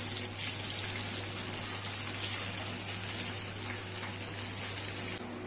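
Banana fritters (pazham pori) sizzling steadily as they deep-fry in hot oil, the sizzle dropping a little just before the end.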